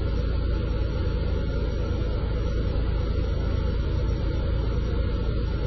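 Cessna 182T Skylane's six-cylinder piston engine and propeller in cruise, heard inside the cabin as a steady, deep drone mixed with airflow noise.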